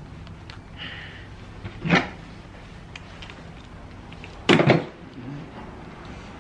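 Hand tools and metal parts handled at a workbench: a socket ratchet knocks on the plastic folding table twice, about two and a half seconds apart, the second knock the louder. Small clicks from the metal pump parts being handled come in between.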